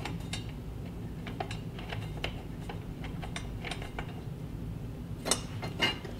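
Light, irregular metallic clicks and ticks as a steel TV wall-mount bracket, an M6 screw and a ratchet with socket are handled while the screw is started by hand into the TV's mounting hole. Two sharper clacks come near the end.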